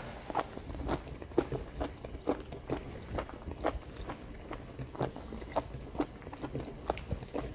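A person chewing a piece of squid close to the microphone: a run of short mouth clicks, about two a second.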